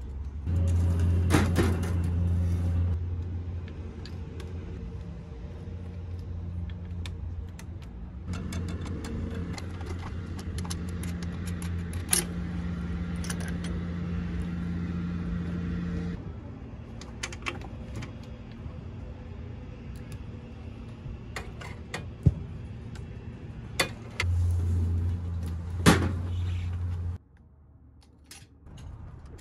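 Metal parts being handled and fitted, with scattered sharp clicks and clinks as intake piping, a blow-off valve and an aluminium catch can with braided lines are worked on. Underneath runs a low steady hum that jumps in level and cuts off abruptly near the end, loudest in two stretches at the start and near the end.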